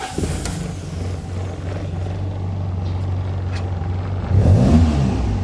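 Toyota 4A-GE four-cylinder engine just started and idling steadily, then revved up and back down briefly near the end. It is running again after a broken fuel-pump wire from the relay was joined.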